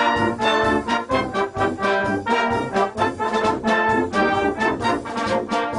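Brass band playing a lively tune of short, separate notes, with trombones prominent.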